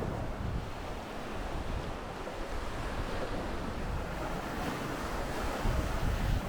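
Sea surf washing on a beach, with wind buffeting the microphone in gusts.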